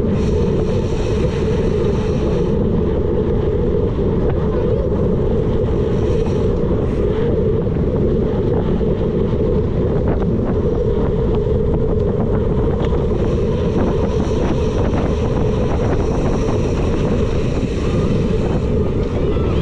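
Steady wind buffeting on a bike-mounted action camera's microphone while riding, mixed with the low rumble of a knobby mountain-bike tyre rolling over a dirt track.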